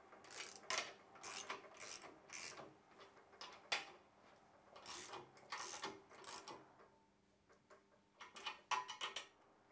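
Hand ratchet wrench clicking in short strokes as the rear main bearing cap bolts on a Holden V8 block are tightened down, crushing the rope rear main seal into place. The faint clicks come in irregular runs, pause briefly near the end, then resume for a few strokes.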